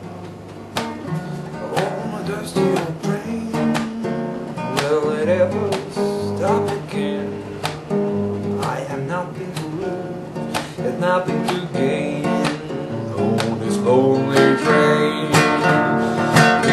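Background music: a strummed acoustic guitar with a melodic lead line, an instrumental break between the sung verses of the song.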